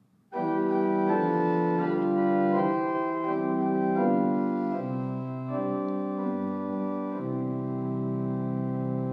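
Pipe organ playing a short introduction of sustained chords that change several times, cutting off near the end. This is the lead-in to a sung canticle.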